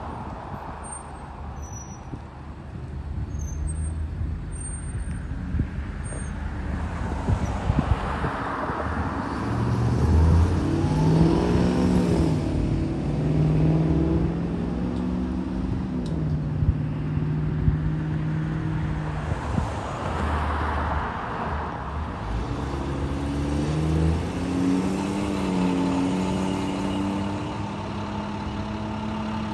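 School buses' diesel-type engines pulling away one after another, their note rising and falling as each bus accelerates and shifts. A short rush of hiss comes about eight seconds in and again near twenty seconds.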